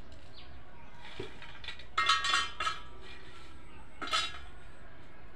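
Metal plate and pan clinking and scraping as cut fish pieces are tipped from a steel plate into an aluminium pan: a cluster of ringing clinks about two seconds in and another about four seconds in.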